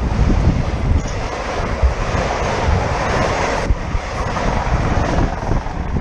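Strong gusty wind buffeting the microphone with a heavy rumble. A rushing hiss swells over the wind and drops out suddenly a little past the middle.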